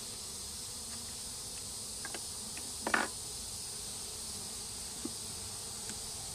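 Honey bees buzzing around an open hive, a steady hum, over a constant high-pitched insect drone in the background. About three seconds in there is one brief louder sound, likely the frame or hive tool scraping against the wood.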